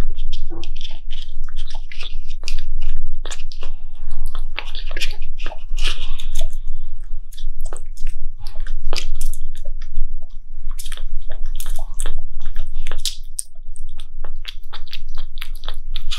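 Kitten suckling milk from a feeding bottle close to the microphone: a quick, irregular run of wet sucking and smacking clicks.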